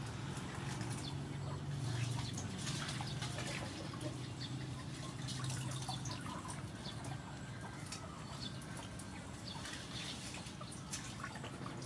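Water dripping and splashing as live river prawns are lifted out of and rinsed in a bowl of water, with scattered small splashes and clicks. A low steady hum runs underneath and is strongest in the first half.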